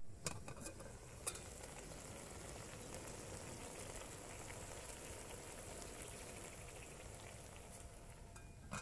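Faint, steady sizzling hiss of chicken cooking in an aluminium pot on a portable gas stove, with a few light metal clicks from the pot lid being handled, the sharpest about a second in.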